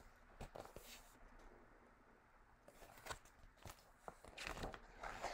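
Near silence with a few faint clicks of a hardback picture book being handled, then a soft paper rustle near the end as a page is turned.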